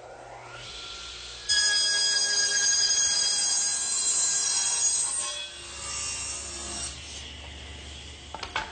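Electric circular saw whining up to speed, then crosscutting a pine board for about four seconds, then running down after the cut. A sharp click near the end.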